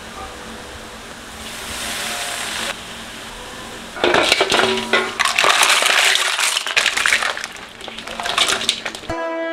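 Seafood in the shell (crabs, then shrimp onto mussels and clams) tipped into a metal wok of hot butter sauce, shells clattering and clinking against the wok with crackling sizzle; a briefer sizzle comes about a second and a half in. Guitar music cuts in near the end.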